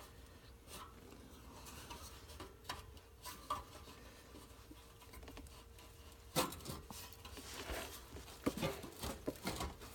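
Faint scattered clicks, taps and light metal clinks of hands handling parts, with a sharper knock about six seconds in, over a faint steady hum.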